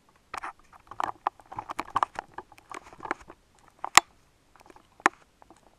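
Fingers handling a small cardboard product box: a busy run of scratchy rubbing and light taps, then a few separate sharp clicks, the sharpest about four seconds in.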